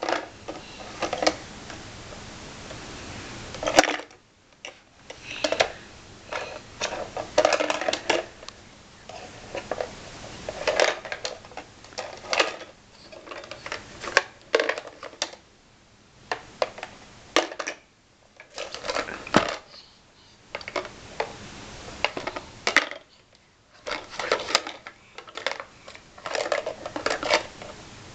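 Hard plastic toy blocks clattering and knocking against a plastic bucket as they are dropped in and handled: irregular knocks and rattles with short quiet gaps.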